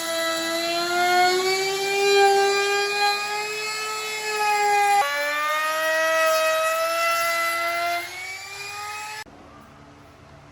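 Electric power tool running with a high, steady motor whine whose pitch drifts slightly, as under changing load. The sound changes abruptly about halfway through, drops near the end, then cuts to a much fainter whine.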